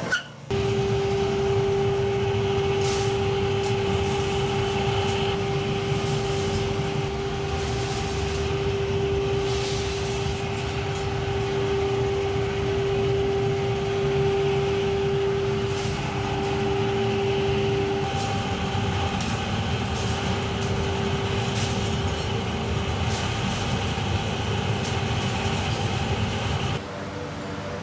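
Air blower of a scrap-aluminium melting furnace running steadily, with a constant hum over dense low noise. Occasional sharp clanks come as scrap aluminium is thrown in.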